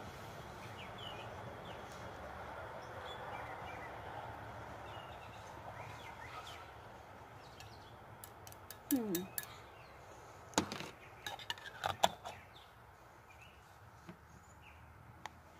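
Faint outdoor background with a few small bird chirps, then a cluster of sharp clicks and clinks close to the microphone from about halfway through, like a jar or dish being handled.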